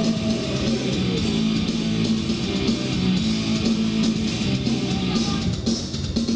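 Instrumental guitar passage of an Indonesian-language song, between sung lines, played at volume through a 200 W class-D amplifier under test.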